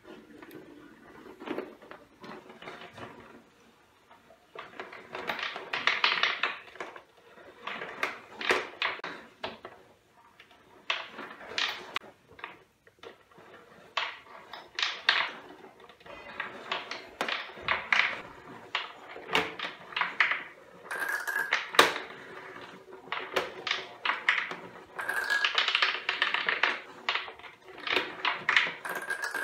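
Gumballs rolling and clattering through a homemade MDF gumball machine's marble-run tracks: a string of irregular clicks and taps, now single, now in quick clusters, as the balls knock against the wooden channels.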